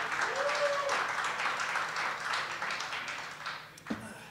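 Small audience clapping, with a short cheer in the first second, fading away near the end. A single sharp knock sounds just before the end.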